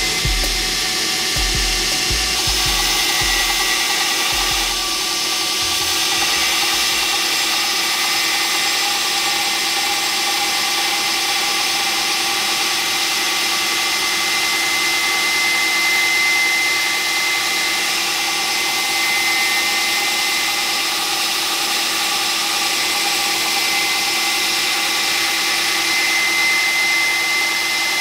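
Belt grinder running with a steel falchion blade held against its small contact wheel, grinding in the fullers: a steady abrasive grinding hiss with a thin, constant whine.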